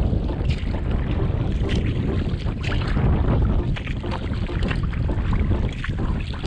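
Wind buffeting the microphone on a kayak, a loud steady rumble, over many irregular small splashes of water.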